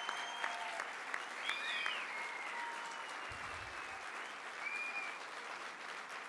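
A large audience applauding, a dense steady clapping that eases off slowly toward the end.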